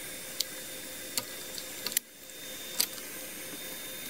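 A few light, sharp clicks and taps, about four in all, from hands and a pocket knife working blue painter's tape at the edge of a 3D printer's metal bed plate, over a steady low hiss. The hiss dips briefly about halfway through.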